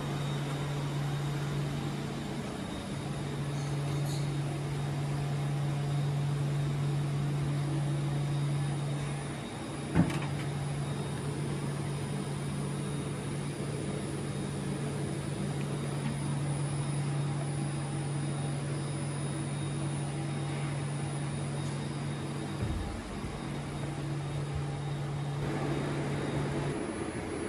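Steady low machine hum of a factory hall, with one sharp knock about ten seconds in.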